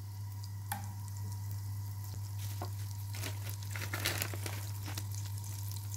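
Butter melting and sizzling faintly in a pot at the start of a roux, with scattered small pops and crackles over a steady low hum.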